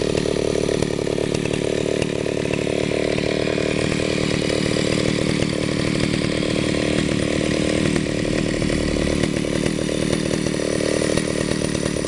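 Stihl 041AV Super two-stroke chainsaw running steadily and evenly, sounding in good health.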